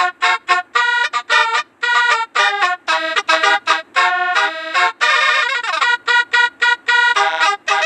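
Basuri-type telolet bus horn tones playing a fast staccato melody, with short reedy notes and chords in quick succession and a brief downward slide about five seconds in.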